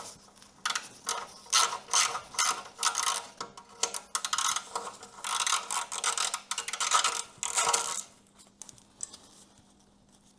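Socket ratchet clicking in quick runs as a 10 mm bolt is worked loose; the clicking stops about eight seconds in.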